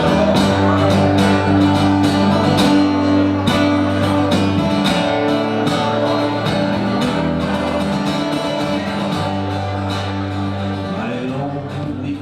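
Background music: guitar-led song with a steady beat and some singing, fading slightly near the end.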